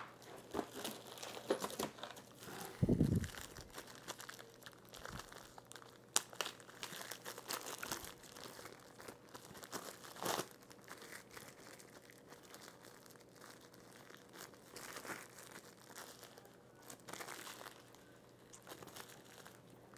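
Plastic packaging wrap crinkling and tearing in scattered crackles as it is worked off a boxed power cable, with a dull thump about three seconds in.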